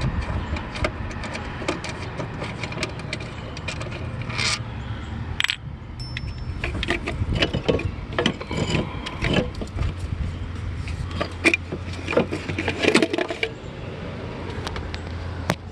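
Irregular metallic clicks, rattles and scrapes of hand tools undoing a 10 mm bolt that holds a Ford F-150's engine computer (PCM), over a steady low hum.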